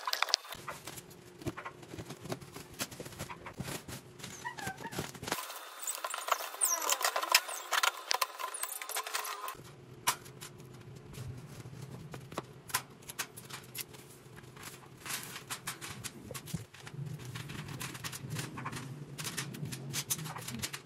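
Metal wire panels of a folding pet playpen being unwrapped and unfolded: irregular clinks and clatters of the wire frames, with rustling of the plastic wrapping.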